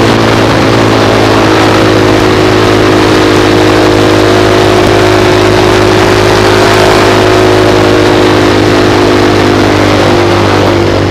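Sport motorcycle engine running at steady cruising revs, its note holding nearly constant and shifting near the end, under heavy wind rush over the camera.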